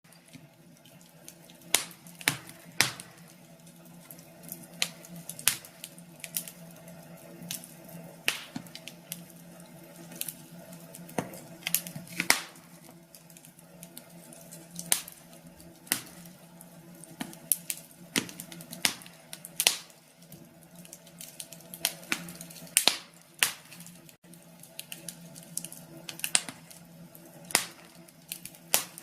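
Wood fire crackling in a fireplace: irregular sharp pops and snaps, one to three a second with uneven gaps, over a faint steady low hum.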